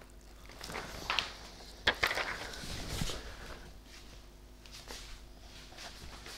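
A person getting up from a leather sofa and walking: clothes and leather rustle, with two sharp clicks in the first two seconds, followed by fainter shuffling steps.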